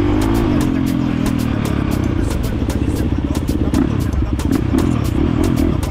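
Dirt bike engine running under throttle, its pitch rising and falling over about the first second and a half, then settling into a low, pulsing chug.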